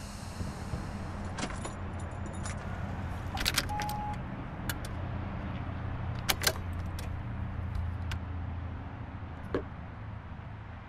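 Car keys on a coiled keychain jingling and clicking in several short bursts while they are handled, over a low steady hum.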